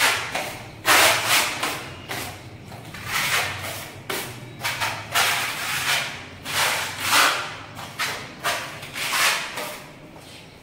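An 8-inch putty blade scraping wall putty across a plastered wall in repeated strokes, about one a second.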